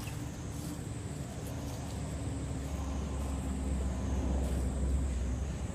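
Outdoor ambience: a steady high-pitched insect drone, with a low rumble that swells about halfway through and drops away just before the end.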